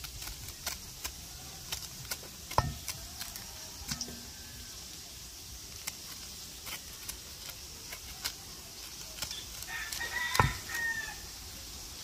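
A rooster crows once, about ten seconds in, over scattered light clicks and knocks, with a sharper knock about two and a half seconds in.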